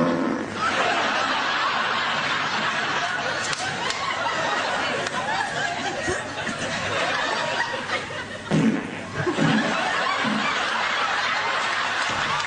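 Studio audience laughing steadily, a dense crowd laugh with a few louder bursts a little past the middle.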